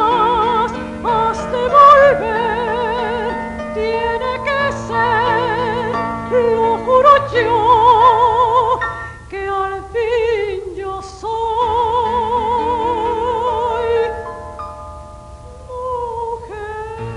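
A soprano singing opera with wide vibrato over held instrumental accompaniment; the music drops in level for a moment near the end.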